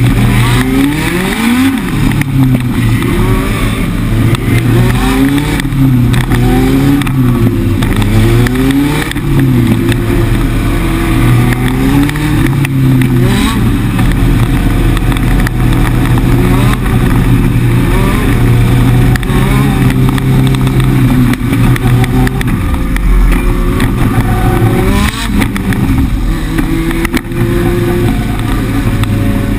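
Legend race car's Yamaha motorcycle-based four-cylinder engine running hard, heard from inside the cockpit. Its pitch rises and falls again and again in the first several seconds, then holds steadier, with a dip a little over twenty seconds in.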